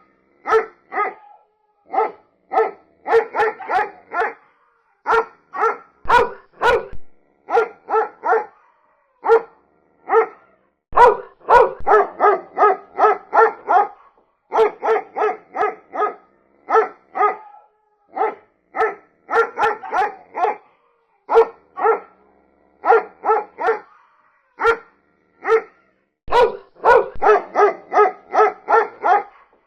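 A dog barking over and over in quick runs of several barks, with short pauses between runs.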